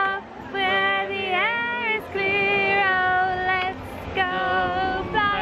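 A woman singing a melody in long held notes, with music.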